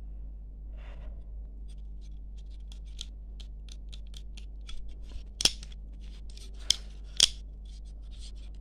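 Rotary range switch of a Behringer 921B oscillator module turned by hand, clicking through its detent positions: a run of small dry clicks, with three sharper ones in the second half.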